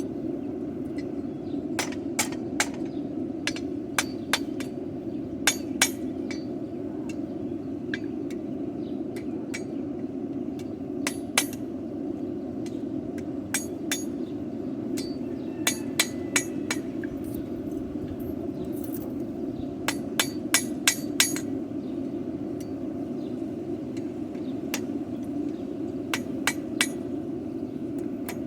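Hand hammer striking a horseshoe on the anvil in scattered clusters of sharp ringing blows, as the horseshoe is forged into a hoof pick. Under the blows runs a steady low rushing noise.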